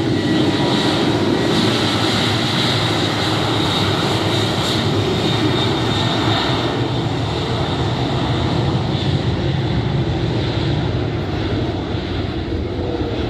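Boeing 737-800's CFM56-7B jet engines at takeoff power: loud, steady jet noise with a high whine, easing off slightly near the end as the airliner moves away.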